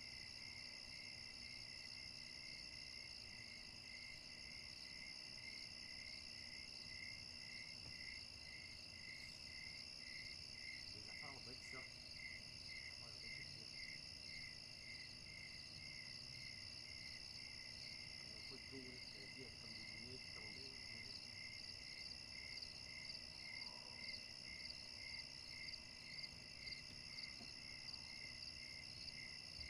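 Faint night insects: crickets chirping in an even, steady rhythm of about one and a half chirps a second over a continuous high insect trill.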